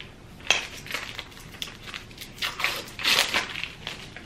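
Plastic packaging crinkling and crackling as it is peeled off a small plastic corn-on-the-cob butter dispenser: a sharp snap about half a second in, then two bursts of crinkling around two and a half and three seconds in.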